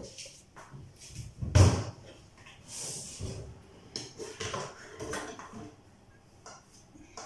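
Kitchen handling noises: a scatter of knocks, clicks and bumps, the loudest a heavy thump about a second and a half in, with some soft rustling between them.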